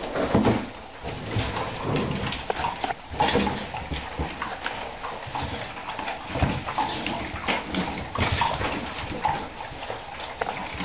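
Several dogs eating from metal bowls on a wooden floor: chewing and lapping, with many short knocks and clinks as the bowls are nosed about.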